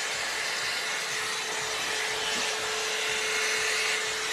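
Hot-air blow-dryer brush running steadily: the rush of air from its blower with a constant hum.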